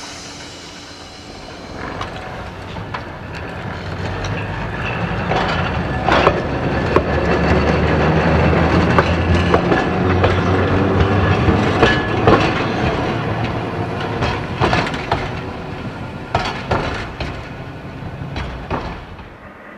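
Fremantle Municipal Tramways electric tram No. 29 passing on its track. A low hum from its motors and running gear swells as it comes by and fades as it moves away. Its wheels give sharp clacks over the rail joints every second or two.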